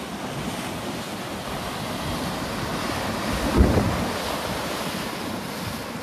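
Big sea waves breaking and washing up on a beach in a steady rush of surf, with wind buffeting the microphone. A louder low thump comes about three and a half seconds in.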